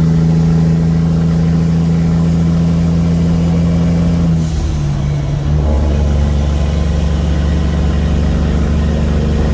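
Cummins ISX inline-six diesel engine in a semi truck running steadily at a raised idle, then its speed drops about four and a half seconds in and it settles to a steady low idle.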